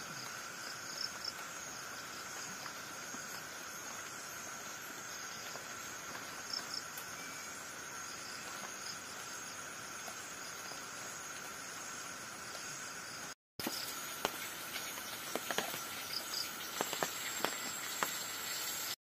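Steady chorus of forest insects: several high, unbroken tones held over an even hiss. After a short break about thirteen seconds in, scattered sharp clicks and knocks join it.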